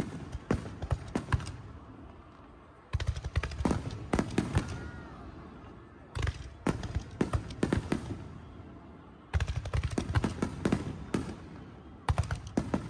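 Fireworks display: volleys of sharp bangs and crackling bursts with a low rumble under them, a new volley starting about every three seconds.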